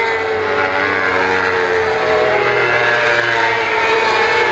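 Several World Superbike race motorcycles passing at high revs, their engine notes overlapping and rising and falling in pitch as they go by.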